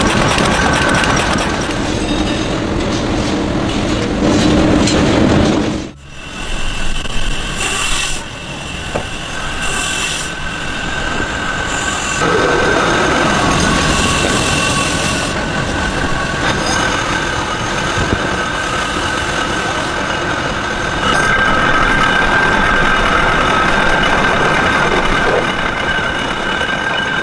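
Woodworking machinery in a match factory running with a continuous mechanical rattle and a steady whine. The sound breaks off abruptly about six seconds in and changes character between machines.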